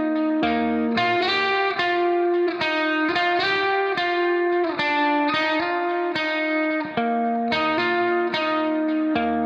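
Background music played on guitar: plucked notes in a steady, continuous run.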